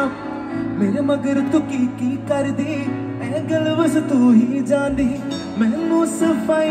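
Live cover band playing Hindi film songs over a stage PA: a wavering sung lead melody over held bass notes, keyboard and electric guitars.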